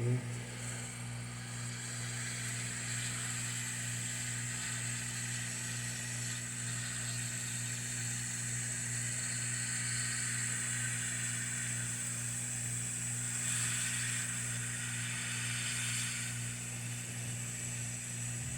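Hot air rework station blowing a steady stream of 300-degree air to melt the solder of a BIOS chip on a laptop motherboard: an even airy hiss over a steady low hum, swelling a little in the second half.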